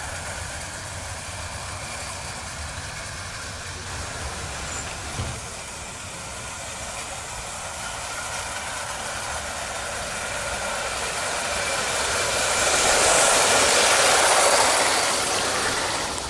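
Aster gauge 1 live-steam Schools class locomotive running with a freight train of tinplate and wooden wagons, a steady running noise that grows louder over the last few seconds. One sharp click about five seconds in.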